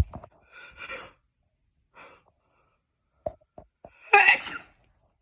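A woman's gasping breaths leading into a sneeze, which is the loudest sound and comes about four seconds in; a sharp, sudden sound at the very start.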